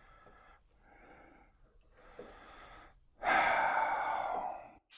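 A person's breathing: a few faint breaths, then a long, heavier exhale about three seconds in.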